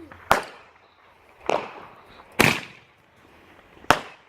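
Firework firing a string of shots: four sharp bangs about a second apart, each with a short fading tail.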